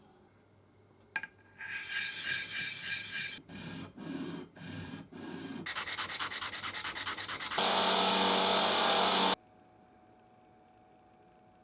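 Abrasive rubbing and scraping on a workpiece. A click comes about a second in, then a stretch of rubbing, three separate strokes, a fast even run of short strokes, and a loud steady stretch that cuts off suddenly after about nine seconds.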